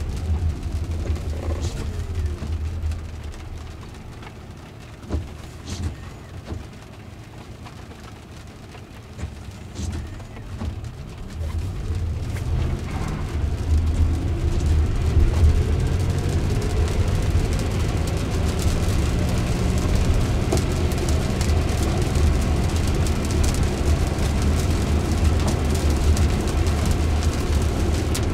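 Cabin noise of a Jaguar I-PACE electric car on a wet road: tyre and road noise that falls away with a dropping whine as the car slows, stays low for several seconds, then returns about twelve seconds in as the electric motor's whine rises with the car pulling away, the tyres hissing on the wet road.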